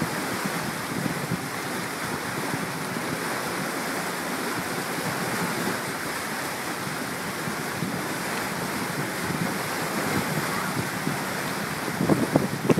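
Steady rushing noise of water churning in a canal lock chamber, with wind buffeting the microphone in a few short gusts near the end.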